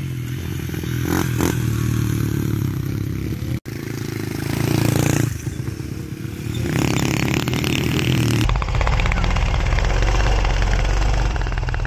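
Small single-cylinder four-stroke off-road engines running in a series of short clips: first a Honda CRF70 dirt bike, then, after two abrupt cuts, a Honda TRX250EX quad. The engine note rises briefly about five seconds in.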